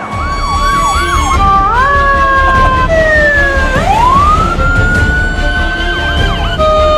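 Fire apparatus electronic sirens: a fast repeating yelp, then held and sliding tones and a slow rising wail, switching abruptly every second or two, over a steady low rumble.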